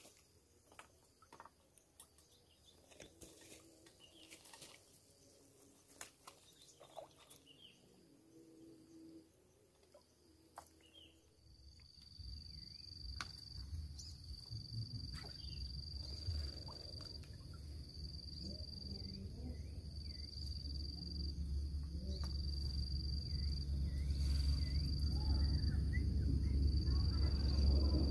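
Outdoor ambience. Scattered faint clicks and knocks fill the first part. From about halfway a high, steady insect trill sets in, breaking off briefly every second or two, over a low rumble of wind on the microphone that grows steadily louder.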